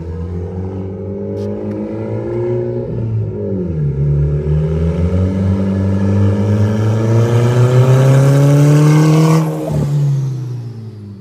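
Big-turbo Saab 9-3 2.0-litre turbo four (B207R, GTX3582 turbo, open exhaust) accelerating hard towards and past. The engine note climbs, drops once at an upshift about three and a half seconds in, then climbs again over a growing turbo hiss. It cuts off sharply as the throttle lifts about nine and a half seconds in, and the pitch falls away as the car goes by.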